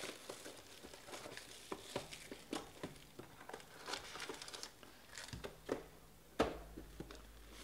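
Cellophane shrink-wrap crinkling and crackling as it is stripped off a box of sports cards and the box is handled, with one sharp knock about six and a half seconds in.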